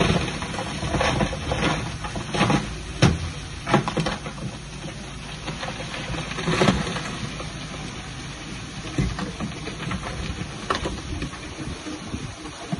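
Bulldozer working: a steady low rumble with scattered clanks and knocks, most of them in the first few seconds.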